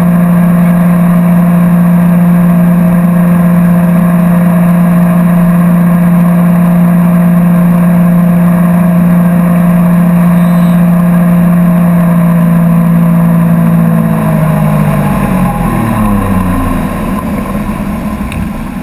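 Tow boat's engine running steadily at speed, then dropping in pitch and level from about 14 seconds in as the throttle is eased off and the boat slows.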